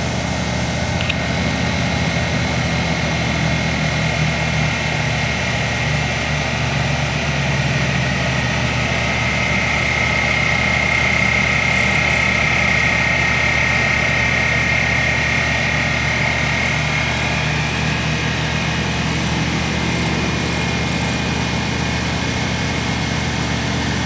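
Air-cooled residential heat pump outdoor unit with a VFD-driven variable-speed compressor running in cooling mode: a steady low hum with a high whine that swells about a third of the way in and eases off later. The owner puts such changing noises down to the compressor changing speed.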